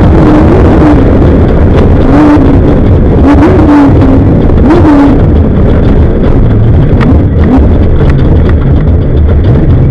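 Off-road race vehicle engine at speed, very loud, its revs rising and falling repeatedly with throttle and gear changes. A constant rush of wind and rough-terrain noise runs under it, with scattered sharp knocks from the course.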